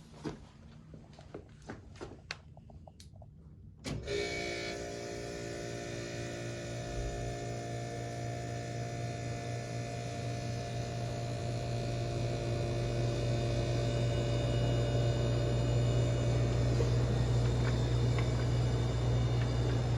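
Vintage 1967 Fedders WeatherWheel window air conditioner switching on about four seconds in after a few faint clicks, then running with a steady, even hum that slowly grows louder as it comes up to speed.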